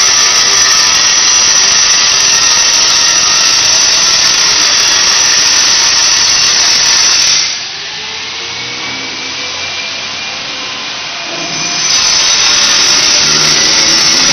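A power tool running steadily and loudly, its noise dropping to a softer level for about four seconds in the middle before coming back at full strength.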